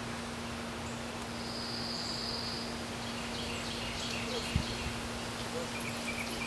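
Woodland ambience: a steady hiss with scattered short bird chirps and a high buzz from about one and a half to nearly three seconds in, over a steady low hum. A single soft thump comes about four and a half seconds in.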